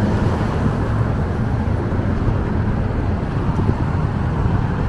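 Steady road noise of a moving car: a dense low rumble with hiss above it.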